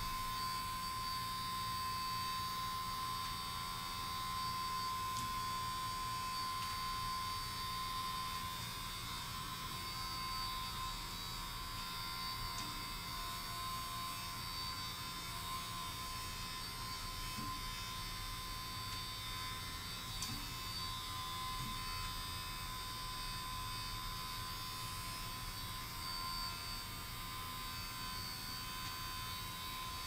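Steady electrical hum with a thin, constant high tone above it, unchanging throughout.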